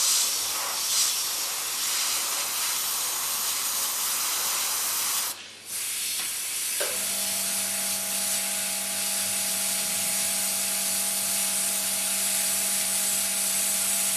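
Airbrush spraying white paint with a steady hiss of air that stops briefly a little over five seconds in. About a second and a half later a steady hum starts underneath and keeps going.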